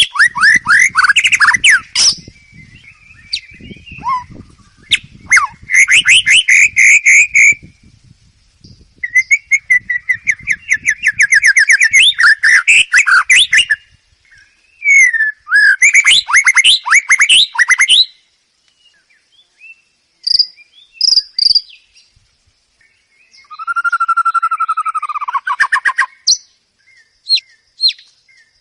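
White-rumped shama singing loud bursts of rapid trills and varied phrases a few seconds long with short gaps between them, including a lower falling buzzy phrase and then short sharp chips near the end. A song of this kind is played to a shama that has stopped singing, to coax it into song.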